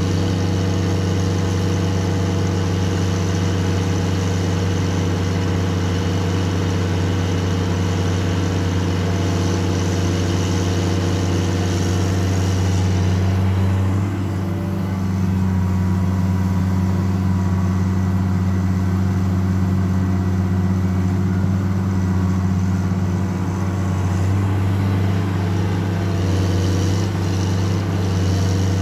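Caterpillar 336D L ME excavator's C9 diesel engine running steadily under working load as it digs in clay. A higher hiss over the engine note eases off about halfway through and comes back near the end.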